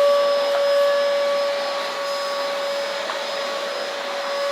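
Vacuum cleaner running steadily, its motor giving a high steady whine over the rush of air, a little louder in the first second or so.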